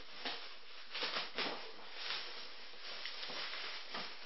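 Black plastic bin bag rustling and crinkling in a series of short, irregular bursts as it is pulled off a taped cardboard parcel.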